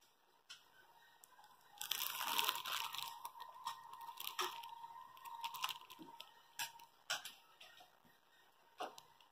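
A dog nosing and pawing at its fabric bed, crunching and rustling. There is a dense stretch of crunching and rustling about two seconds in, followed by scattered sharp crunches and clicks.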